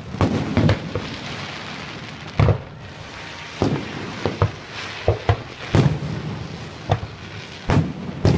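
Aerial fireworks bursting in an irregular string of about a dozen booms, several coming in quick succession around the middle, each trailing off in a rumble.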